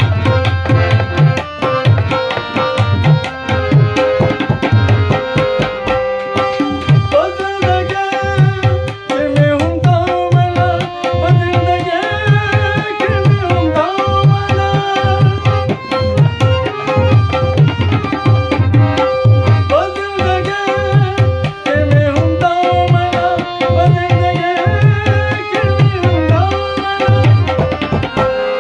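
Harmonium playing a melody over a held drone note, accompanied by a hand drum keeping a steady quick rhythm: Pashto folk music.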